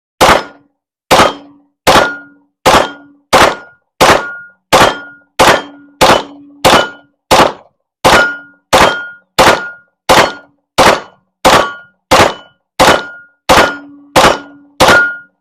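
Glock 45 9mm pistol fired in slow, steady single shots, about 22 in all, roughly one every 0.7 s, with a short ringing tone after many of them. The whole 17-round magazine with its +5 extension runs dry with no stoppage, so the extension spring is feeding every round.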